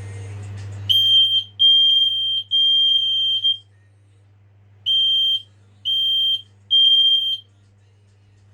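Smoke alarm sounding on its test button: a loud, high-pitched beep repeated in two groups of three, with a pause of about a second between the groups. This is the standard three-beep evacuation pattern.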